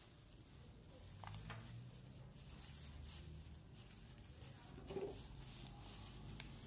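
Faint handling sounds of plastic-gloved hands pressing toppings onto rolled ice cream in a cup: a few soft taps and rustles, one slightly sharper near the end, over a low steady hum.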